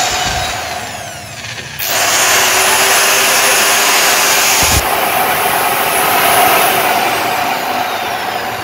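Electric chainsaw running on a test run, its motor and chain going steadily; it gets louder about two seconds in, with a single short knock near the middle.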